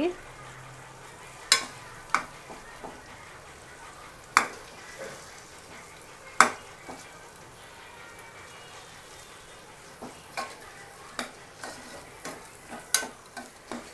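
A metal spoon stirs and scrapes through onion, ginger-garlic paste and tomato pieces frying in an aluminium pressure cooker, with a low steady sizzle underneath. The spoon knocks sharply against the pot every second or two, with several clinks close together near the end. The tomatoes are being fried and pressed until they soften.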